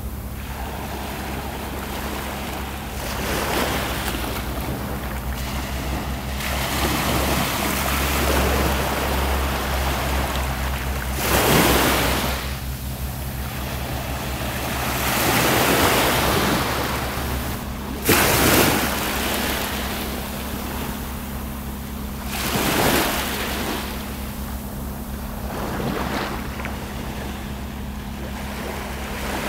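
Small sea waves breaking and washing up a beach, surging every few seconds, with a low wind rumble on the microphone.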